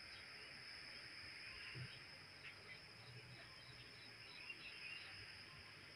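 Faint rural ambience: a steady high-pitched insect trill, with a run of short faint chirps about halfway through.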